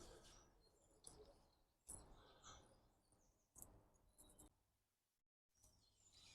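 Near silence: faint outdoor ambience with a few brief, faint bird chirps. The level jumps abruptly twice and drops out completely for a moment near the end.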